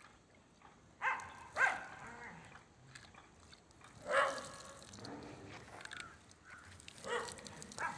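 A dog barking: about five short barks, a pair, then a single bark, then another pair.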